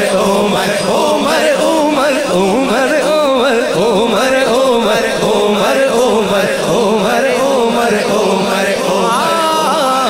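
Male naat reciter singing a manqabat into a microphone, a wavering, ornamented vocal line over a steady low drone. Near the end the voice climbs to a higher line.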